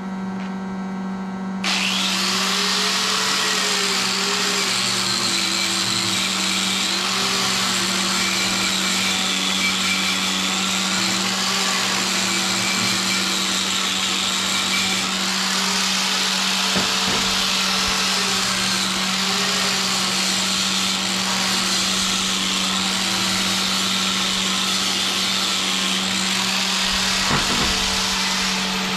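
Handheld grinder grinding metal clean, starting about two seconds in, its pitch wavering up and down as it is pressed into the work. A steady low hum runs underneath.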